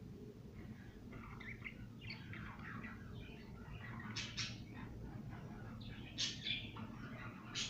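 A flock of parrots chattering and calling over one another, with several louder calls standing out about four seconds in, at about six seconds, and near the end.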